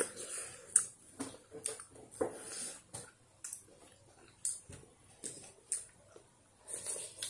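Two people eating noodle soup: irregular slurps and chewing, with short clicks of spoons against ceramic bowls.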